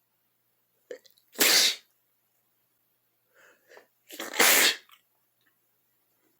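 A person sneezing twice, about three seconds apart, each sneeze led by short catching in-breaths; the sneezes come with a cold.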